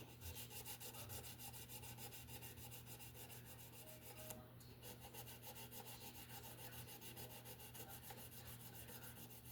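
Hand sanding on a mandolin's fretboard and frets: quick, even back-and-forth rubbing strokes, several a second, with a short pause a little before halfway.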